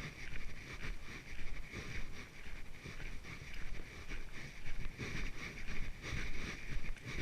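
Footsteps on a trail at a steady walking pace, about two steps a second, with wind rumbling on the microphone.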